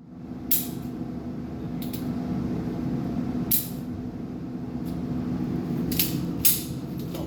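Steady hum of an indoor shooting range, broken by about seven short, sharp cracks at uneven intervals, fainter and thinner than a close shot: shots fired on other lanes.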